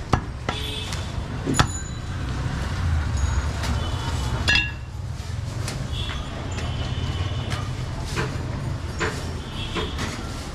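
A heavy butcher's cleaver chopping goat meat on a wooden chopping stump: two sharp chops in the first two seconds and another about four and a half seconds in. Lighter knocks and clinks are scattered over a steady low rumble.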